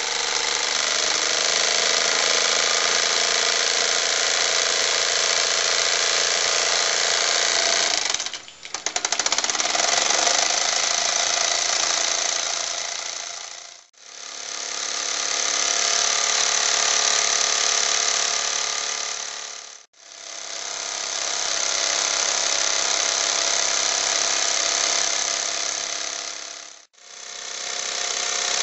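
Mamod SE2a model stationary steam engine running at speed: a steady, rapid mechanical clatter with a hiss of steam. The sound drops out briefly several times.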